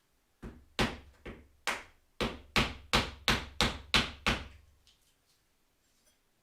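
About eleven hammer blows on a wooden block, driving the head of a hydraulic cylinder down into the barrel to get at its locking ring. The blows come about three a second after the first few.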